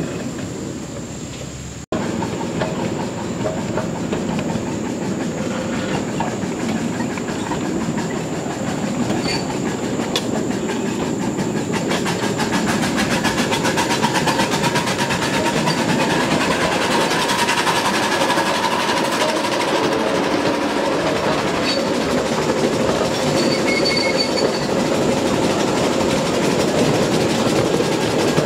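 Ride-on live-steam scale train rolling along its small track, the wheels clicking steadily over the rail joints. The sound is heard from aboard a riding car.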